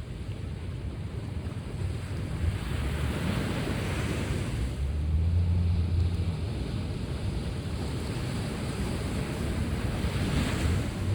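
Sea waves washing onto the shore, the hiss swelling as each wave breaks, with wind buffeting the microphone in a low rumble about halfway through.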